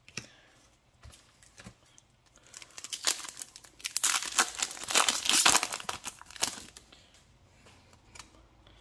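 A foil Yu-Gi-Oh booster pack wrapper being torn open and crinkled by hand: a crackling rustle that starts about three seconds in and lasts about four seconds.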